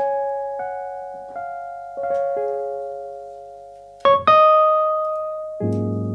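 Jazz piano playing slow, spacious notes and chords that each ring out and fade. A louder, brighter chord comes about four seconds in, and a low, full chord near the end.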